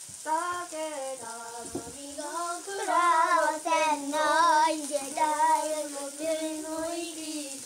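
A child singing a melody without accompaniment, holding long notes that waver in pitch.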